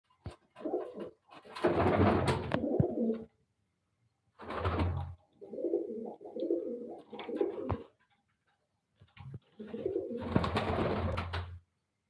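Fancy pigeon cooing in four bouts of one to two seconds each, about a second apart.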